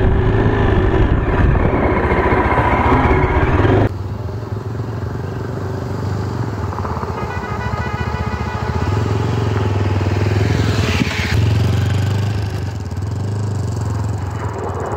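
Yezdi Adventure motorcycle's single-cylinder engine running at low speed, heard close up from the rider's seat. About four seconds in the sound cuts abruptly to a quieter, steady engine hum.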